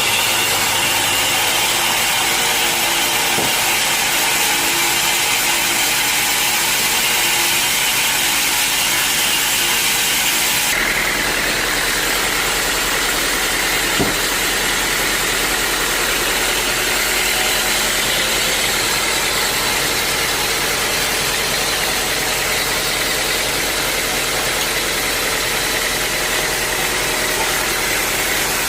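Sawmill engine running steadily with the saw going. Its tone shifts about eleven seconds in, and there is a single short knock a few seconds later.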